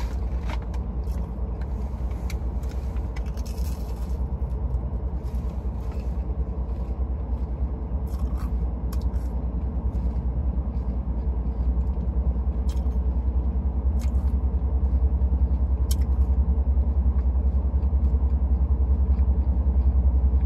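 Steady low rumble inside the cabin of an idling Rolls-Royce, growing a little louder toward the end, with a few faint clicks from the food and paper bag being handled.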